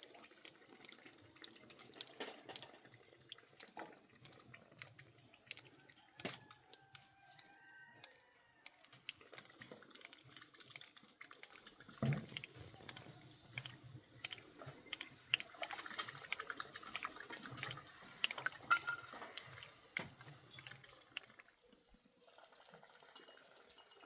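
Water being poured and sloshed, with scattered knocks and clinks and one heavier knock about halfway through.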